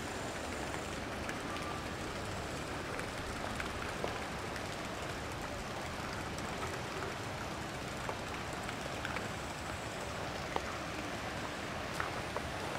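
Steady hissing noise with a few faint, scattered clicks.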